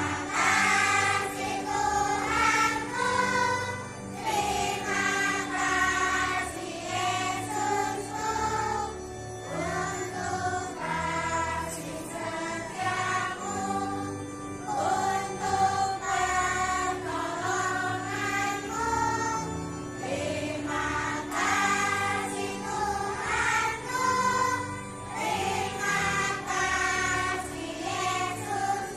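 Young children's choir singing a church song together, over steady held chords from an accompanying instrument.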